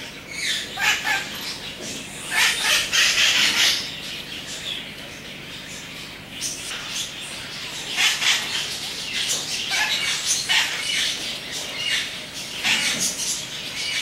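Parrots giving harsh, screechy squawks in repeated bursts, loudest a few seconds in and again around eight to ten seconds in.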